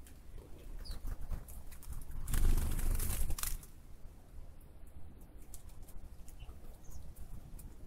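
Open-air rural ambience with a few short, high bird chirps. About two seconds in, a gust of wind buffets the microphone for about a second and a half, the loudest thing here.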